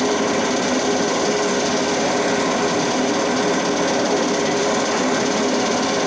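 Grape destemmer and sorting line running, a steady, dense mechanical rattle with a constant hum as grape clusters are fed through.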